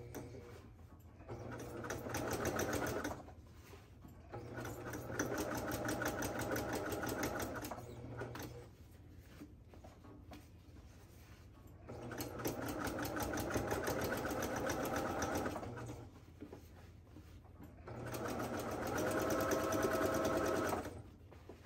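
Domestic sewing machine topstitching around the rim of a fabric basket, running in four bursts of fast, even needle strokes, each a second to four seconds long, with short pauses between them.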